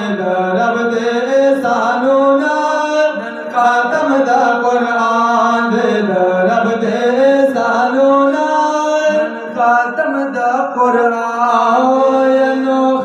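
A man singing a Pashto naat (devotional song) into a microphone, drawing out long held notes that bend slowly in pitch, with no words that can be made out.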